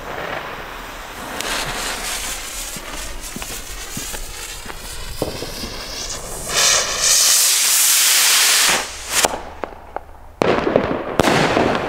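Weco Targa firework rocket: a crackling hiss while its fuse burns, then a loud rushing whoosh as it launches about six seconds in. About ten seconds in its burst breaks with a sudden loud bang, followed by sharp crackles.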